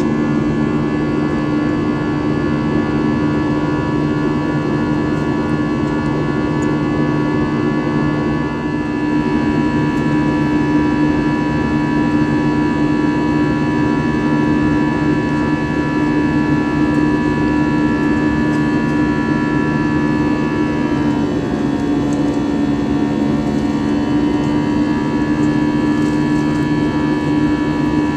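Airbus A320-family jet in flight, heard inside the cabin: a steady engine drone and airflow noise carrying several steady humming tones. The tones shift slightly in pitch about three quarters of the way through.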